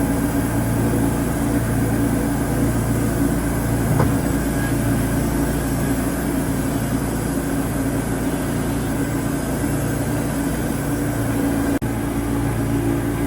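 Wood-Mizer LT40 Super sawmill running steadily with a constant engine hum, and a brief click about four seconds in.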